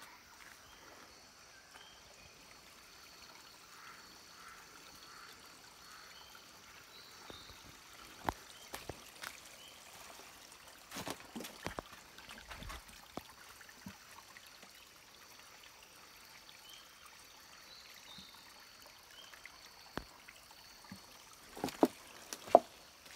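Quiet tropical forest ambience: a steady high drone, typical of insects, with a few faint short chirps. Rustling and snapping of footsteps and handling in dry leaf litter come in patches and are loudest near the end, with a few sharp crackles.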